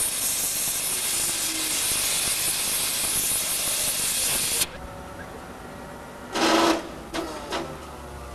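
Gas cutting torch hissing steadily as it cuts through scrap steel, cutting off abruptly about four and a half seconds in. A brief loud burst of noise follows about six and a half seconds in, then two shorter ones.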